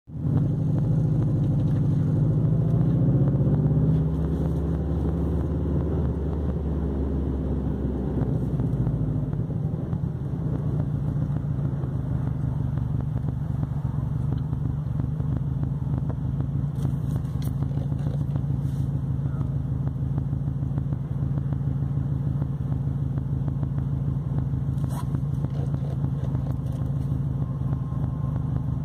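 Car engine heard from inside the cabin, running with a heavier rumble for the first few seconds, then settling to a steady idle.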